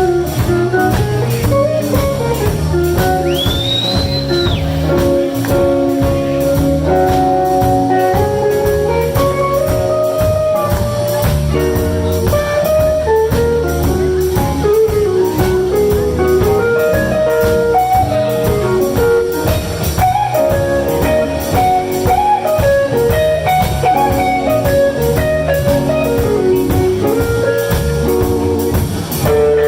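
Live blues band playing an instrumental passage: a guitar carries a bending melodic lead over a drum kit. A brief high whistle rises and holds about three seconds in.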